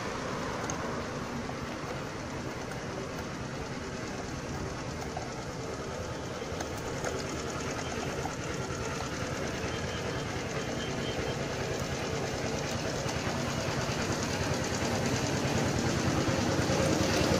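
Steady mechanical hum with fine rapid ticking and a few steady tones, slowly growing louder towards the end.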